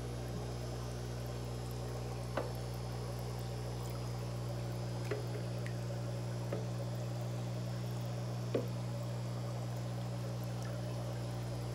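Aquarium pumps humming steadily with water running and bubbling in the tank, broken by a few faint knocks.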